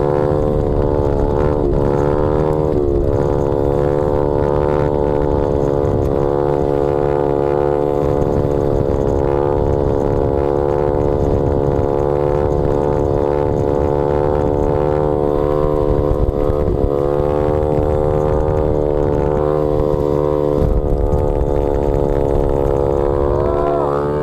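Big-bore-kitted Honda Z50R pit bike's single-cylinder four-stroke engine running at steady cruising revs under way, with a couple of brief small dips in pitch. Wind rushes over the handlebar-mounted microphone.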